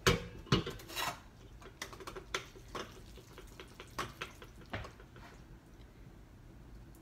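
Kitchenware clattering: dishes, pans and utensils knocked and clinked together in a quick cluster of sharp clinks in the first second, then scattered knocks that thin out and stop after about five seconds.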